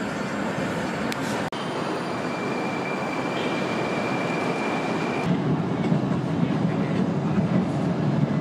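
Tashkent metro train running, heard from inside the carriage: a steady rumble of wheels on rail, with a thin steady high whine through the middle, the rumble growing louder and rougher about five seconds in.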